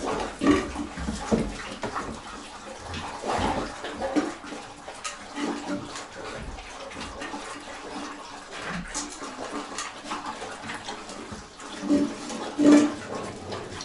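Dogs lapping and slurping broth from a shared bowl, in irregular wet splashes.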